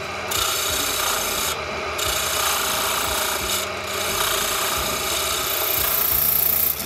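Small tabletop circular saw cutting a piece of queen conch shell, a continuous gritty rasping as the shell is pushed through the blade. It grows brighter and a little louder near the end.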